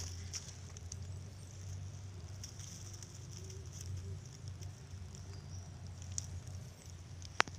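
Dry leaves and a mesh crab net rustling and crackling as the net is handled over leaf litter, with a sharp click near the end.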